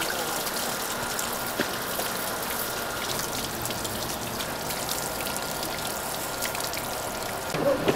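Water from a hose splashing steadily onto wooden boards of mullet roe and running off them onto concrete as the salt is rinsed off the roe.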